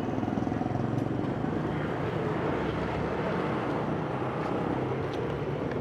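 Street ambience dominated by a steady low engine rumble, with a few faint clicks over it.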